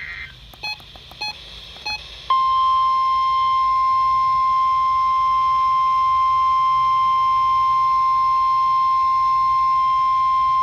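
A NOAA Weather Radio alert. The last of the SAME digital header bursts ends right at the start, a few short beeps follow, and about two seconds in the steady 1050 Hz warning alarm tone begins and holds unbroken. This is the attention signal that comes before a spoken severe weather watch.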